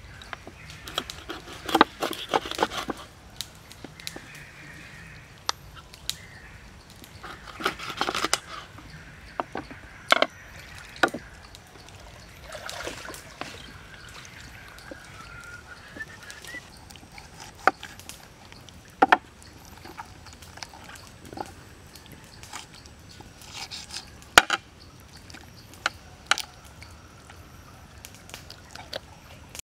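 A large knife chopping and cutting a raw whole chicken on a wooden board: quick runs of sharp knocks early on, then scattered single knocks, with soft wet handling of the meat in between.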